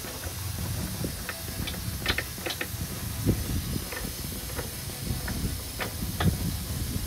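Scattered small metallic clicks and taps as bumper bolts are turned in by hand, over a steady background hiss.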